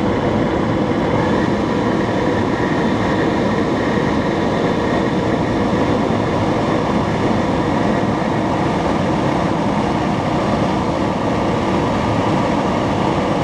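Homemade electric jet engine, a brushless electric motor spinning a centrifugal compressor that blows through a kerosene combustion chamber, running steadily at high speed: a loud, even rush of air with a faint steady whine.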